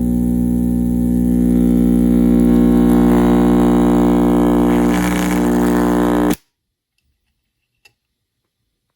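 A loud, sustained droning tone with many overtones that swells and then cuts off abruptly about six seconds in, followed by silence and one faint click.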